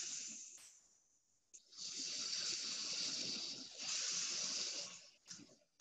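Marinated chicken satay skewers sizzling on a hot stovetop grill. The hiss dies away, then comes back in two stretches, with a light click about a second and a half in and another near the end.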